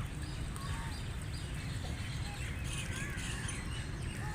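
A flock of wild ducks and geese calling, with many short, overlapping quacks and chirping calls over a steady low rumble.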